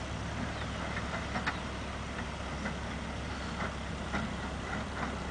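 Bobcat 430 ZHS mini excavator's engine idling steadily, with a few faint clicks.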